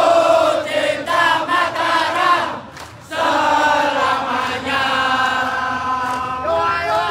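Large crowd of football supporters chanting together in unison: one sung phrase, a brief break about three seconds in, then a longer phrase with drawn-out notes.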